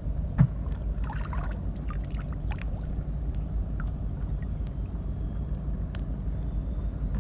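Steady low rumble with scattered small clicks and splashes as a fishing line and fish are handled in shallow water. A single sharp knock about half a second in is the loudest sound.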